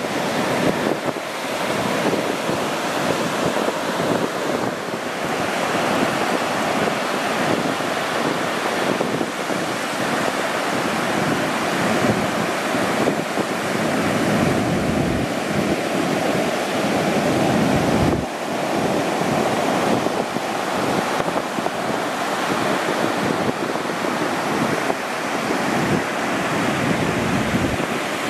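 Ocean surf: waves breaking and washing in as a steady, continuous rush of water.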